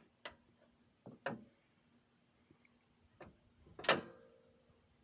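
A hinged metal panel on a 1986 Chevrolet C20 pickup swinging shut on hinges sprayed with WD-40. A few light clicks are followed about four seconds in by one firm latching slam, with a brief metallic ring after it.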